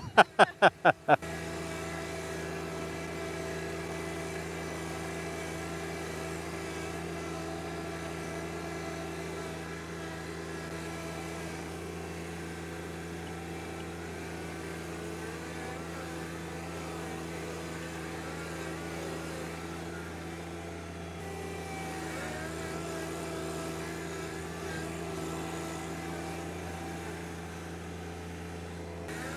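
A brief, loud, choppy sound in the first second, then the John Deere 1025R's three-cylinder diesel engine running at a steady speed as the compact tractor pulls a disc harrow through worked garden soil.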